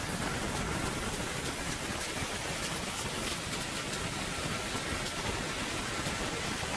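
Steady rushing noise, an even hiss over a low rumble, with no distinct events or changes.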